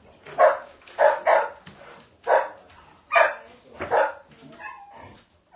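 A dog barking indoors, about six short barks spaced unevenly over the first four seconds.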